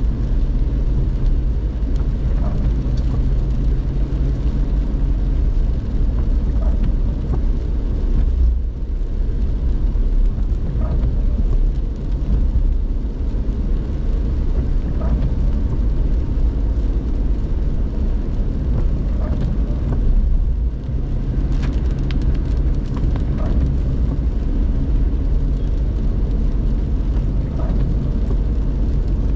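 Car running noise heard inside the cabin while driving on wet, rainy streets: a steady low rumble of engine and tyres. A faint hum fades out for a stretch in the middle and comes back.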